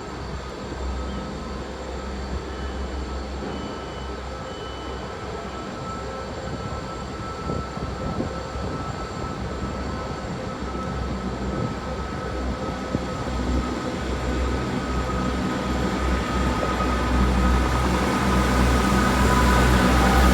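Class 158 diesel multiple unit's underfloor diesel engines running with a low rumble, growing steadily louder as the train powers away, with a rising steady whine near the end.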